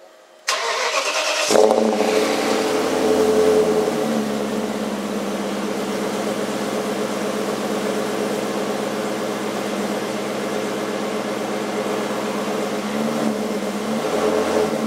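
BMW 540i's 4.4-litre V8 with its rear mufflers removed, starting up about a second in. It runs a little faster for a couple of seconds, then settles into a steady idle through the straight-through rear exhaust.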